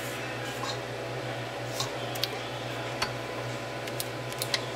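A steady low background hum with a few light clicks and taps as a hand works at the stainless-steel bowl of a stand mixer full of batter.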